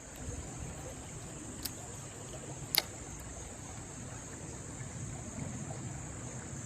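Steady high-pitched chorus of insects, crickets or similar, with low outdoor background noise. A faint click comes about a second and a half in, and a sharper, louder click about a second later.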